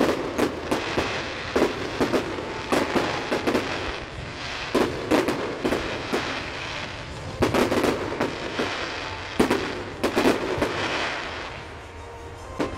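Fireworks display: a rapid run of aerial shells bursting in clusters of bangs, with a dense crackle between them, easing off near the end.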